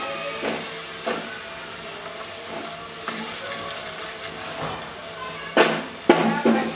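Spice paste frying in oil in a nonstick pot with a low sizzle, stirred with a plastic spatula that scrapes and knocks against the pot, the two loudest knocks about five and a half and six seconds in.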